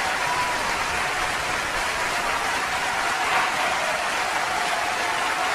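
Spectators in a sports hall making a steady din of applause and cheering.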